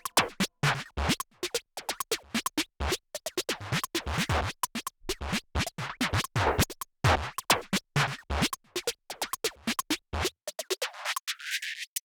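Background electronic music in a choppy break made of rapid, short, stuttering hits. For a couple of seconds near the end the low part of the sound drops out, then the full track comes back.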